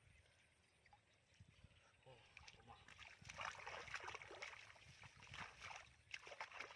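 Faint sloshing and splashing of muddy shallow water as hands grope through it for fish. The splashes come in irregular bursts that get busier and louder about halfway through.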